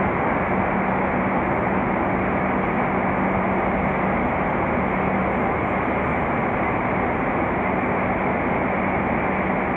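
Steady din of a busy railway station under its roof, with trains standing at the platforms. A constant low hum runs under an even rumbling wash of noise, and no single event stands out.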